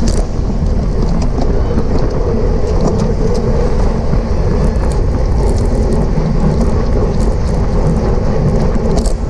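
Wind buffeting the microphone of a camera riding on a racing bicycle in motion: a loud, steady rumble with faint ticks now and then above it.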